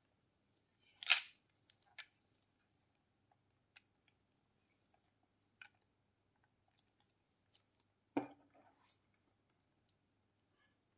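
Hard plastic skull-shaped watch box handled in gloved hands: a sharp click about a second in, then faint taps, and a louder knock with a short rattle about eight seconds in as the box is opened.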